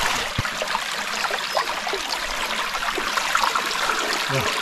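River water running steadily, with small trickles and splashes.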